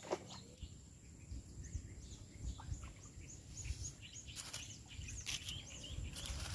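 Faint chirping of small birds, many short high calls, over a low rumble, with a few brief clicks.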